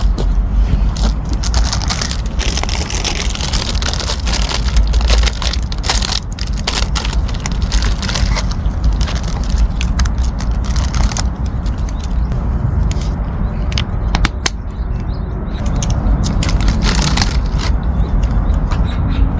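Crackling, crushing and scraping handling noises with many scattered sharp clicks over a steady low rumble.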